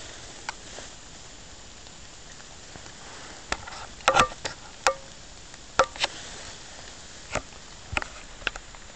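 A scattered series of sharp clicks and knocks, bunched most loudly around four to five seconds in, a few with a short ring: gear being handled against a tree stand.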